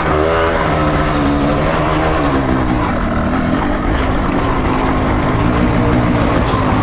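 Off-road motorcycle engine running under constantly changing throttle on a trail, its pitch rising and falling.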